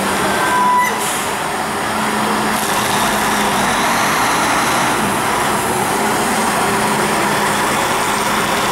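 Rosenbauer Panther 6x6 airport crash tender's diesel engine running steadily as the heavy truck pulls slowly out of the station. A brief high beep sounds just under a second in.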